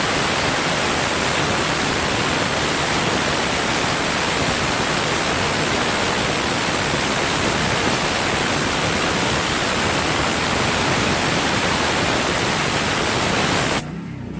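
Pressure washer spray from a turbo (rotating) nozzle blasting a concrete walkway, a loud steady hiss. It stops suddenly near the end.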